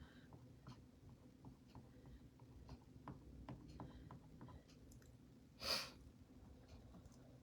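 Near silence with faint scattered ticks and taps of hand tools at work on a silk screen, and one short soft swish a little past halfway.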